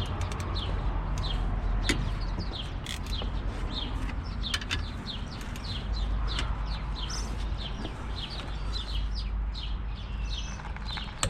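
Small birds chirping in quick, repeated short falling notes over a steady low rumble, with a few sharp clicks near the start and again about two seconds in.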